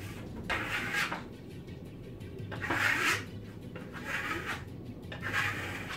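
Steel Venetian-plaster trowel scraping across freshly applied decorative plaster on a sample board, in four short strokes of about half a second each.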